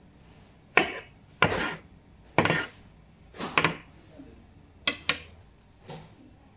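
Large kitchen knife chopping scallions on a wooden cutting board: single sharp knocks roughly a second apart, about eight in all, a few with a short scraping tail.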